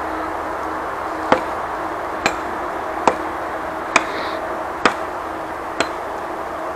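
Six sharp chopping knocks, a little under a second apart, over a steady background hiss.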